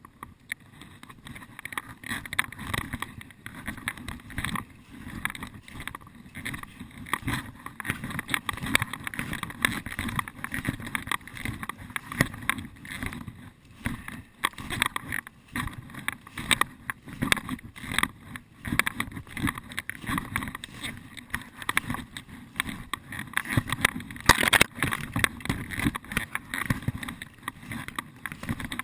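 Continuous crunching and rustling of footsteps moving through forest undergrowth and leaf litter, with one louder sharp crack near the end.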